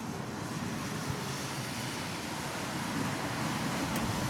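Distant thunder rolling as a low, steady rumble under an even hiss of storm noise, slowly growing louder toward the end.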